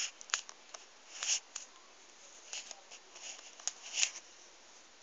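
Handling noise from a handheld camera being moved about: a string of short clicks and brief rustles over low room hiss, stopping after about four seconds.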